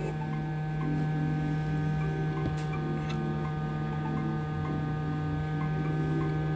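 A steady low electrical hum, with faint, brief low tones coming and going above it.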